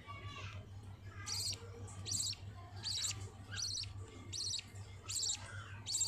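Budgerigar chicks calling: short, high, raspy chirps repeated at an even pace, about one every 0.8 seconds, seven times.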